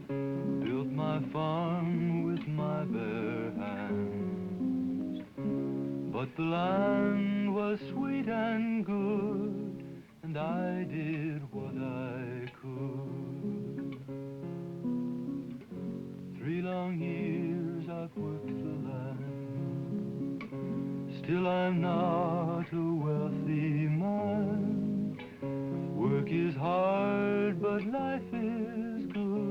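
Soundtrack music: acoustic guitar under a slow melody with long, wavering notes that sounds sung.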